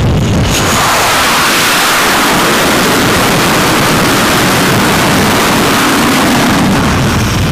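F/A-18 jet engines in full afterburner during a catapult launch: a loud, steady rushing noise that swells about half a second in and holds.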